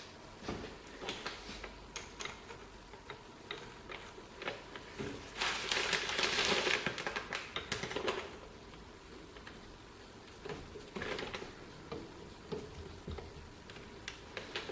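Light clicks and taps of small metal parts and tools being handled while fitting the half-nut handle on a lathe apron. About five and a half seconds in there is a louder rustling, scraping noise lasting about two and a half seconds.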